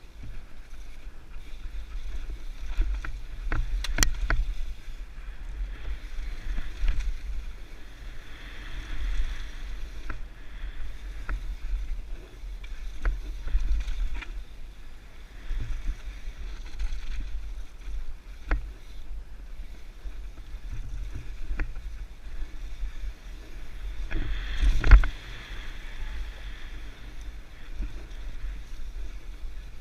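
Mountain bike riding downhill on a bike-park trail: steady rumble and tyre hiss with scattered sharp rattles and knocks from the bike over bumps, the loudest knock about 25 seconds in.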